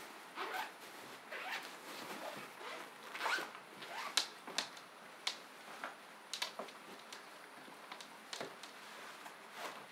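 Gear being handled and packed by hand: a stuff sack and bags rustling and crinkling in quick, irregular strokes, loudest in a cluster a few seconds in.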